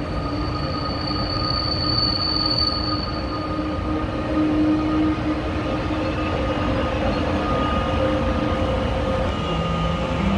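DB Class 182 Siemens Taurus electric locomotive with double-deck coaches rolling in along the platform and slowing, its traction equipment giving a steady electric whine of several held tones over the rumble of the wheels. A thin high squeal sounds over it for the first few seconds and fades about four seconds in.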